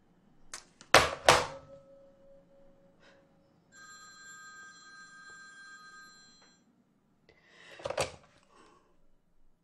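A landline telephone rings once, a steady electronic ring lasting about three seconds. Sharp knocks come about a second in, and a clatter near the end as the corded handset is picked up.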